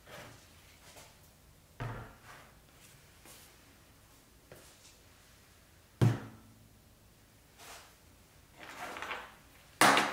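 Household supplies set down one at a time on a workbench: a few separate dull thuds, the loudest about six seconds in as a box of salt is placed. Near the end a rustle, then a loud clatter as a small battery charger with its clip leads is laid down.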